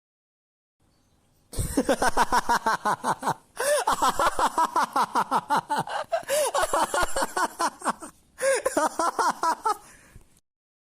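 A person laughing hard and uncontrollably in rapid, evenly pulsed bursts, about seven a second. The laughter comes in three long runs broken by two short pauses for breath.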